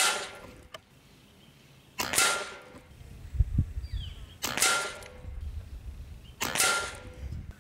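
Crosman ICON PCP air rifle firing four shots about two seconds apart, each a sharp crack followed by a short metallic ring, with its air reservoir freshly filled.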